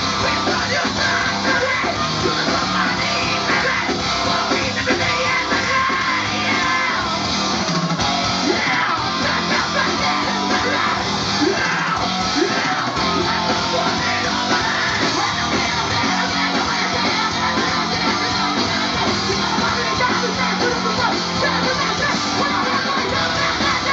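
A live heavy metal band playing loud and without a break, with yelled vocals over guitars and drums.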